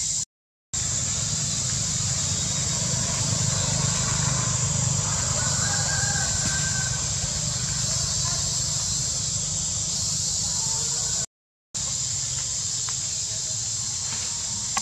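Tropical forest ambience: a steady high-pitched insect drone over a low rumble, with faint distant bird calls midway. The sound cuts out briefly twice.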